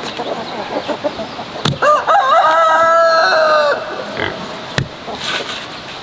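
A rooster crows once, a single drawn-out call of about two seconds that starts near two seconds in. Light knocks and scrapes come from stones being pressed into wet cement.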